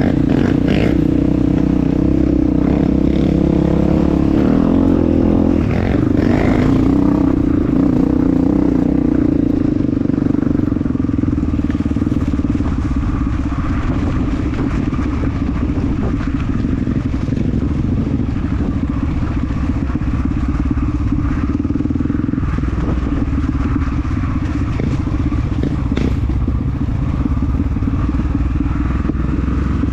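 Honda CRF250F trail bike's single-cylinder four-stroke engine running under changing throttle, the pitch dropping and climbing again about six seconds in, then steadier and a little quieter.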